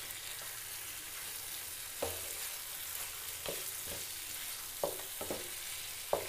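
Chicken pieces sizzling in hot oil and spice paste in a frying pan while a wooden spatula stirs them, with a steady frying hiss and several short scrapes and knocks of the spatula against the pan from about two seconds in.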